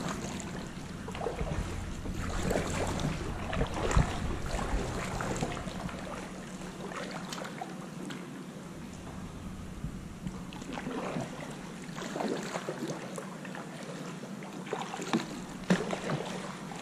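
Water sloshing and lapping around a kayak as it is paddled slowly, with irregular paddle splashes. A sharp knock comes about four seconds in and a couple more near the end.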